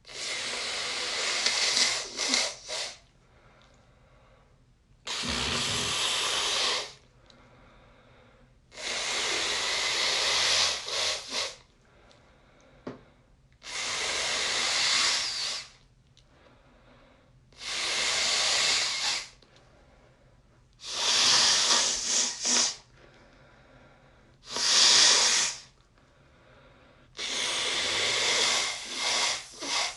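A person blowing a congested nose into a folded tissue, about eight soft, wet blows with short pauses between them. Each blow is a long airy hiss of one to three seconds, and several end in a wet, fluttering rattle of mucus.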